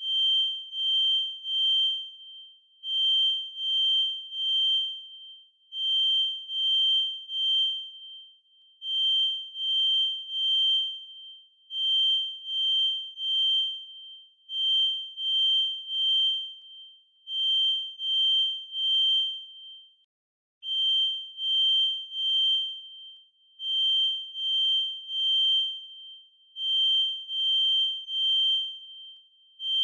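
Kidde FireX i4618AC smoke alarm sounding its full alarm: a high-pitched beep in repeating groups of three with a short pause between groups. This is the temporal-three pattern that signals smoke or fire.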